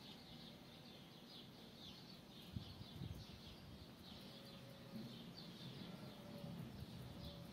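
Faint bird chirping: short, high chirps repeated several times a second. A couple of low thumps come about two and a half and three seconds in.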